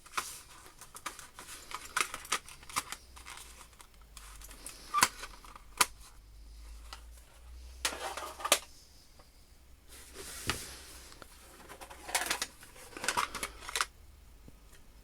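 Drawing tools and stationery being handled on a desk: scattered clicks, taps and short rustles, a few sharper clicks standing out.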